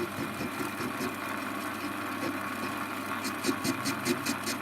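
Warco metal lathe running steadily with its motor hum; about three seconds in the tool starts an intermittent cut, a rhythmic ticking about six or seven times a second. The off-centre workpiece touches the tool only on one side of each revolution.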